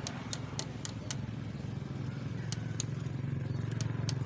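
A motor engine running steadily with a low hum that grows louder near the end, as of a vehicle drawing closer, with a series of sharp, irregular clicks over it.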